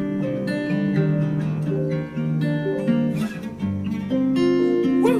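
Background music: an acoustic guitar picking a melody over steady chords.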